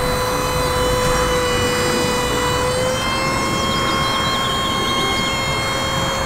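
Truck-mounted aerial work platform running its hydraulics: a steady whine over a low engine rumble as the boom moves the bucket, with a few faint high chirps about halfway through.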